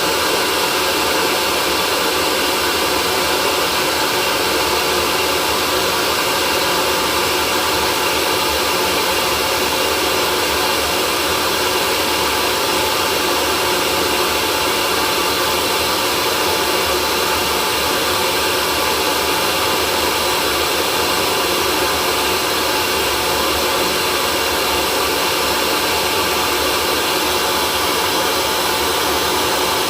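Hair dryer running steadily: an even rush of blown air with a constant motor whine.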